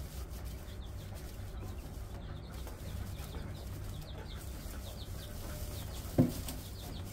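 Birds chirping faintly in the background over a low steady hum, with one short, louder knock about six seconds in.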